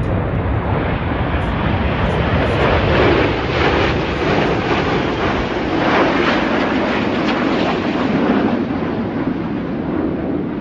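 Jet noise from a formation of Red Arrows BAE Hawk trainer jets flying past: a loud, continuous rushing that swells in the middle of the pass.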